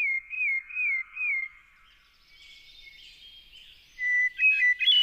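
Songbird singing: a run of identical whistled notes, each dropping in pitch, about three a second, stopping after about a second and a half. Near the end come a bird's quick, loud chirps.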